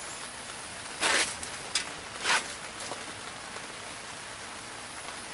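Steady hiss of rain falling on a canopy, mixed with a lit handheld propane torch held to the paper in the vent holes of a chimney coal starter. Two short, louder bursts of hiss come about a second and a little over two seconds in.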